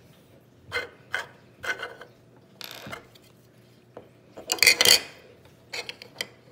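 Small plastic Lego pieces clicking and clattering as they are handled on a tabletop, in several short bursts with a brief rub between them, the loudest cluster a little past the middle.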